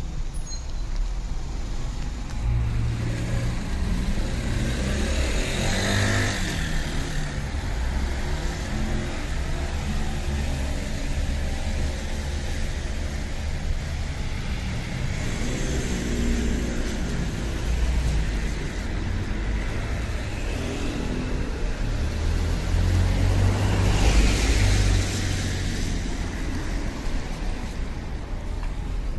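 Road traffic: a steady low rumble with several cars passing on wet pavement, each swelling and fading, the loudest about six seconds in and around twenty-four seconds in.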